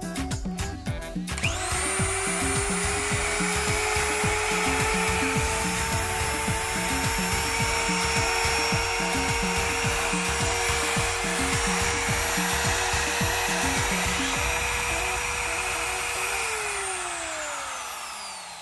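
Trim router motor switched on, spinning up quickly to a steady high whine, then switched off near the end and winding down with falling pitch. This is a test run of the repaired router with its new armature fitted.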